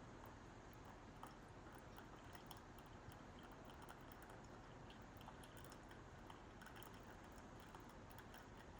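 Near silence: faint room tone with a few scattered faint ticks.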